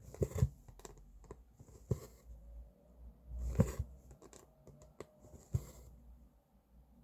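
Hand cross-stitching: a needle poked through the fabric with small clicks and taps, and the thread drawn through with a short swish about every two seconds.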